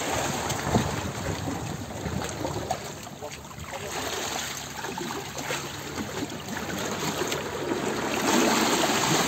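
Water rushing and splashing around a moving ship: a steady wash of noise with small irregular splashes.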